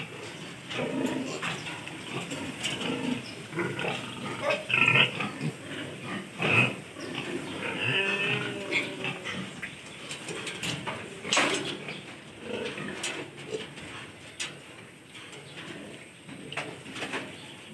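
A litter of piglets grunting and giving short squeals on and off, with a few sharp knocks among them, the loudest a little past halfway.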